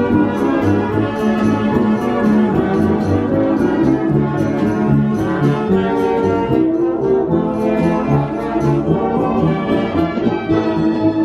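Brass band playing a tune live, with full chords of sustained and moving brass notes.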